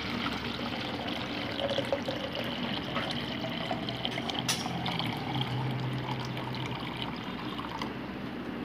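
Water poured from above in a steady stream into a cut-down 1.5-litre plastic bottle, splashing as the bottle fills.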